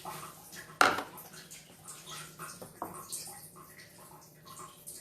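Kitchen clatter from dishes and utensils being handled: one sharp knock about a second in, then a few softer clinks, over a faint steady low hum.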